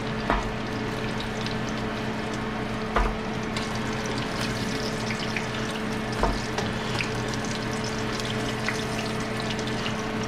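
Panfish frying in hot oil: a steady sizzle with fine crackles, over a low steady hum. Three dull knocks come early, about three seconds in and about six seconds in.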